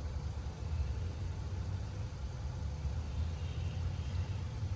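Steady low rumble of outdoor background noise, with no voices.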